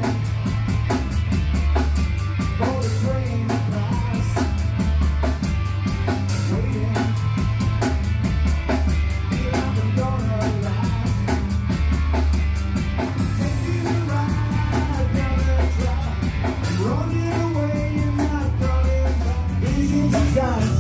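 Rock band playing: drum kit keeping a steady beat under bass, electric guitar and a male lead vocal.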